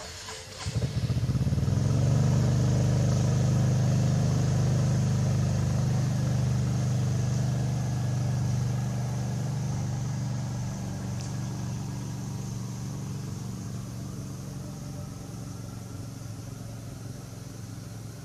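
A motor vehicle's engine running close by. It comes in suddenly about a second in, stays steady and loud for several seconds, then slowly fades.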